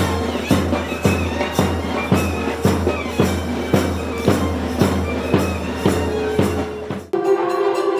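Traditional South Indian music: a reed-pipe melody over a steady drone, with drum strokes about twice a second. About seven seconds in it cuts abruptly to different music with steady held tones.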